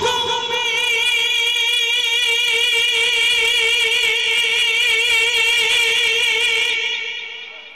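A man's voice holding one long sung note of a naat through a public-address system, with a slight waver, fading away near the end.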